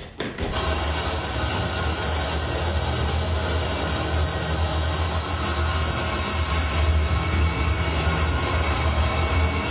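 Loud electronic noise soundtrack coming in abruptly about half a second in: a dense hiss over a low droning rumble, with two steady high-pitched whistling tones held on top.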